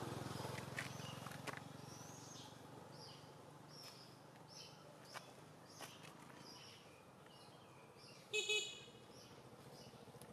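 Small birds chirping over and over in the background, with a brief, louder high-pitched call about eight seconds in.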